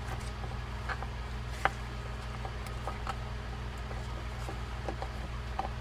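Faint small clicks and taps of metal reel parts as the yoke and pinion gear are worked off a Shimano Calcutta 251 baitcasting reel, with one sharper click about a second and a half in, over a steady low hum.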